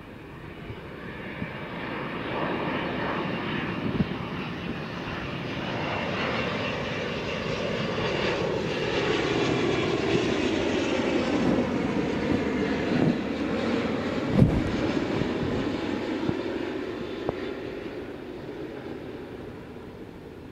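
Boeing 777's twin General Electric GE90 jet engines on landing approach, swelling to a peak as the airliner passes close and then fading, with faint whining tones that slide in pitch. A brief sharp knock about two-thirds of the way through.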